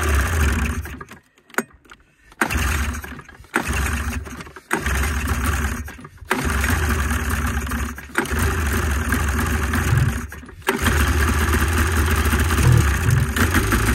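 1987 Arctic Cat Cougar 500 snowmobile's Suzuki two-stroke engine being started: it fires for a second or two and dies about six times, then keeps running from about eleven seconds in, revving near the end.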